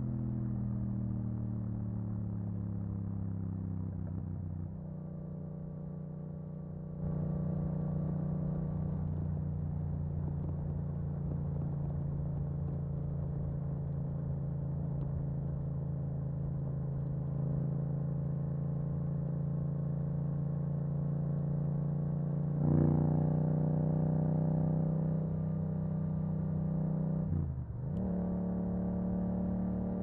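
Yamaha MT-07's parallel-twin engine through an Akrapovic exhaust while riding. The revs fall away at first, then the engine holds a steady note for most of the time. It gets louder on the throttle about three-quarters through, and the note dips briefly and picks up again near the end.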